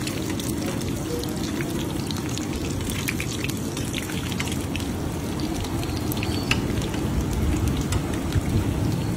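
Batter fritters deep-frying in a large wok of hot oil, sizzling steadily over a low rumble. Light clicks of a metal skewer and spatula against the fritters and pan come a few times.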